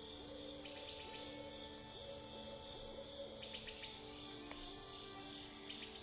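Crickets chirping in a steady high trill, over soft music of long held notes, with a few brief chirps.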